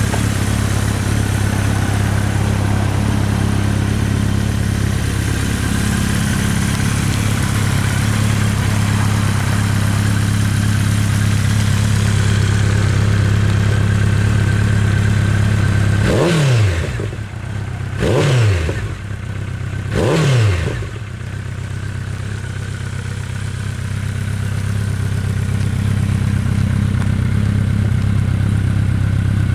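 Honda CB1300 Super Bol d'Or's inline-four engine idling steadily through its stock exhaust, with three quick throttle blips about two seconds apart past the middle, each revving up sharply and dropping straight back to idle.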